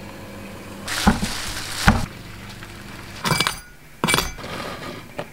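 Cola poured into a glass, fizzing, with a couple of sharp glass clinks; then short crunches as a knife cuts through the crisp crackling skin of a roast porchetta.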